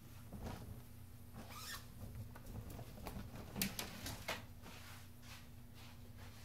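Faint footsteps and clothing rustle of a person moving about a small room, with scattered light knocks and clicks over a faint steady hum.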